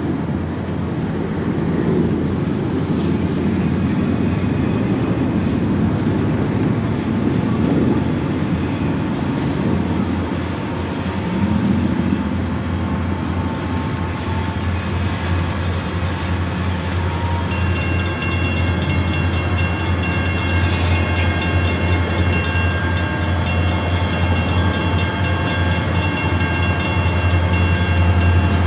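Two EMD GP40-series diesel locomotives (16-cylinder two-stroke 645 engines) approaching with a steady low drone that grows louder over the second half. From about two-thirds of the way in, a steady high-pitched squeal from the wheels on the curved track joins in and holds.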